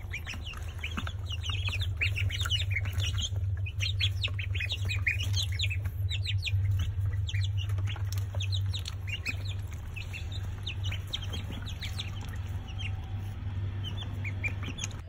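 A brood of young ducklings and chicks peeping: many quick, short falling peeps, busiest in the first half and thinning out later, over a steady low hum.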